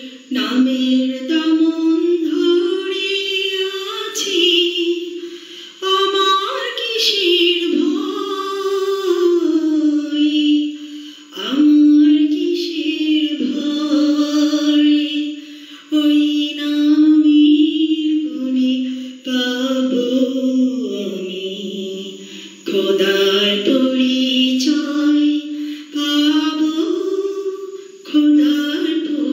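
A woman singing a Bengali Islamic song in a single voice, holding long notes with short breaks between phrases.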